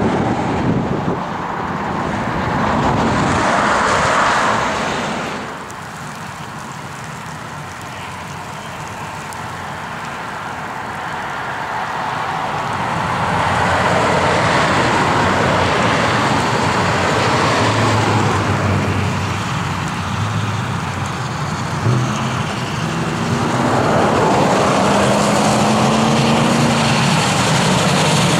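NZR Ab-class 4-6-2 steam locomotive hauling a passenger train, first running away and fading, then heard approaching and growing louder until it is close. Steady low humming tones come in during the second half.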